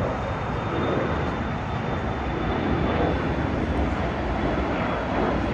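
Embraer 175 regional jet's twin turbofans at climb power just after takeoff: a steady rushing roar with a faint high whine.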